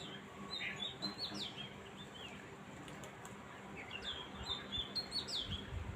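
A songbird chirping: a quick phrase of high chirps and short falling notes, sung about a second in and repeated almost identically about four seconds in. A few low thumps come near the end.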